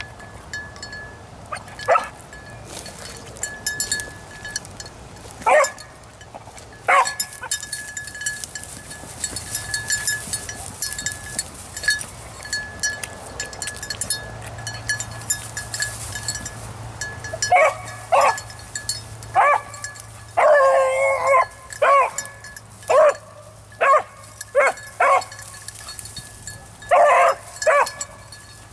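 Beagle barking on a rabbit's scent trail: a few single barks early on, then a quick run of barks from about two-thirds of the way through as the hound opens on the track.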